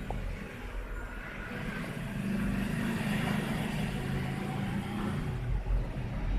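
Low engine rumble of passing road traffic, growing louder about two seconds in.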